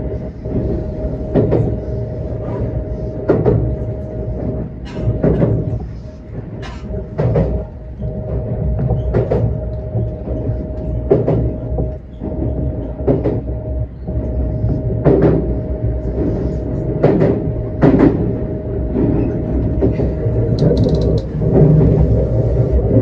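Electric train running between stations, heard from inside the front car. There is a steady rumble with a held mid-pitched tone, and sharp clacks come every second or two.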